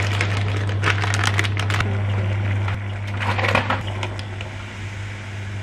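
Plastic instant-noodle packet crinkling as it is handled and opened, then a seasoning sachet torn open about three seconds in, over a steady low hum.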